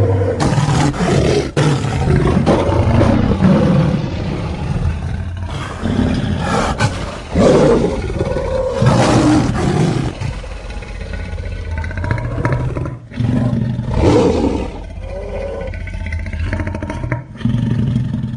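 Giant piranha creature sound effects: a string of loud roars and growls, one after another, some with pitch sliding up or down, with short breaks between them.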